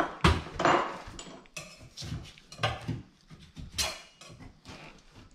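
A thin metal scraper blade scraping and knocking against the edge of a kitchen sink as it is worked under the lip to break the adhesive seal. The sound comes as irregular short scrapes and clinks, then grows fainter in the last second or so.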